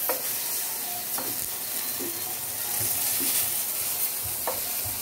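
Eggplant slices sizzling steadily as they fry in oil in a pan, with a few light knocks of a plastic spatula against the pan.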